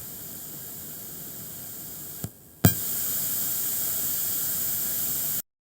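Steady background hiss from a speaker driven by a TPA3116D2 Bluetooth amplifier board with no music playing, the board's noise floor. About two seconds in, the hiss drops away, two sharp clicks follow, and the hiss comes back louder and steady.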